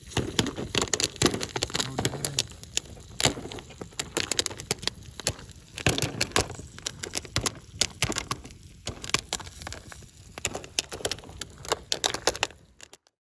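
Dense, irregular crackling and snapping that cuts off suddenly near the end.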